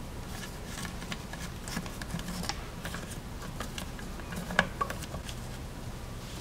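Play-Doh being pressed by hand into a mold on a plastic Hulk figure: faint, scattered clicks and taps of fingers and nails on the hard plastic, with a sharper click about four and a half seconds in.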